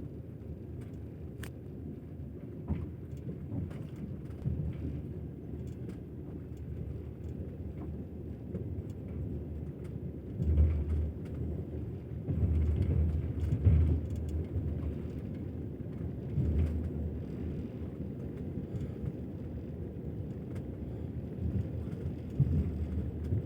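Passenger train in motion: a steady low rumble of the wheels on the rails, with heavier bursts of clatter over rail joints about ten seconds in and again a few seconds later.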